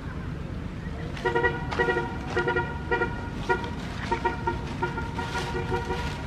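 Newborn macaque crying: a rapid, irregular string of short, high-pitched distress calls starting about a second in, over a steady low rumble of wind noise.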